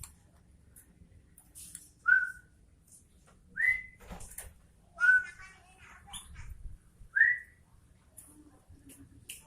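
Sooty-headed bulbul (kutilang) calling: four short, loud whistled notes, each sliding upward, spaced about one and a half seconds apart, with softer chattering between them.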